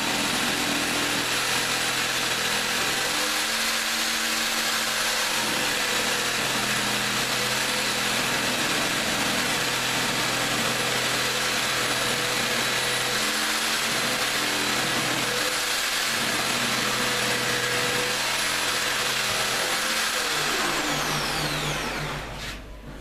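Corded electric jigsaw sawing through a kitchen worktop, a steady loud motor whine with blade chatter. Near the end the trigger is released and the motor winds down in falling pitch.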